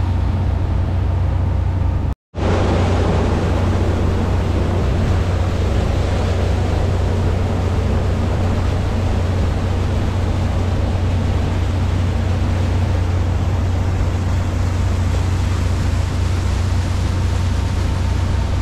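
Cruising motorboat's engine running with a steady low drone under a constant rush of wind and water. The sound cuts out completely for a split second about two seconds in.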